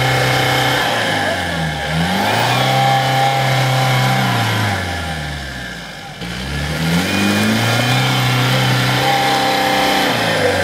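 Land Rover Defender's engine revving hard under load as it ploughs through deep mud. The revs drop away briefly about two seconds in, fall further about six seconds in, then climb back and hold.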